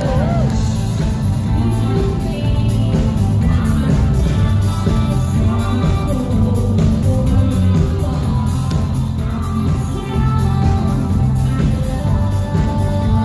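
Live rock band playing loud music, with a heavy bass-guitar low end.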